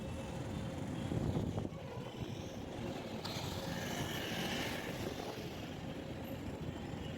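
Road vehicle rumble and traffic noise, with wind on the microphone.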